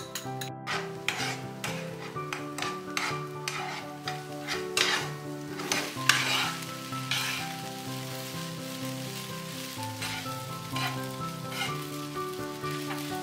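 Beaten egg sizzling in a hot ceramic nonstick frying pan with instant noodles, while a metal fork stirs and scrapes through them in quick, irregular strokes. The strokes are loudest about halfway through.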